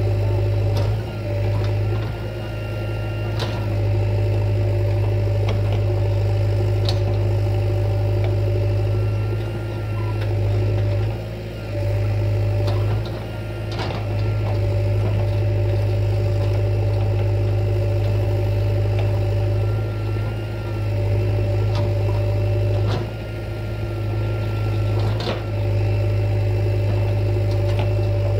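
Diesel engine idling steadily with a deep, even hum, broken by a few brief clicks and knocks.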